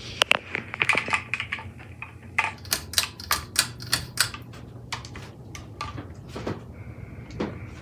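A rapid, irregular run of sharp clicks and taps, several a second and thinning out after about five seconds, over a low steady hum.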